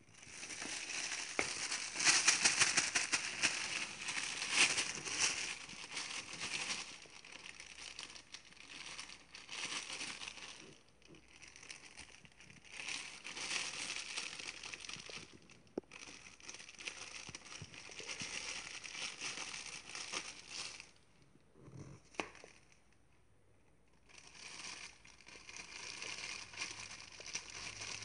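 Thin plastic bag crinkling and rustling as it is handled, in irregular stretches with short breaks and a pause of about two seconds near the end.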